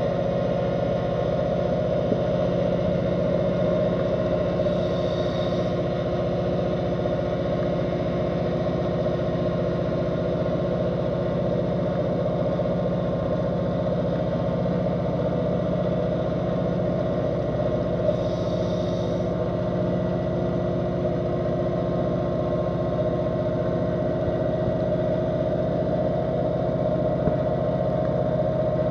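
Steady drone of a boat engine carried through the water and heard underwater: an unchanging hum of several fixed pitches. There are two short hisses, about 5 seconds in and again about 18 seconds in.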